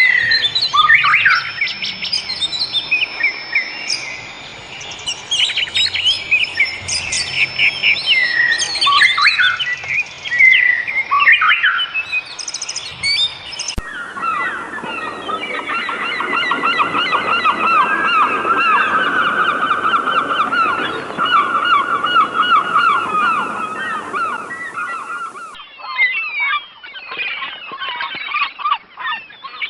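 Wild birds singing and calling: varied whistled, gliding songs for the first half, then a sudden switch to a dense chorus of rapidly repeated calls, and another switch near the end to scattered calls. The abrupt changes are splices between separate recordings.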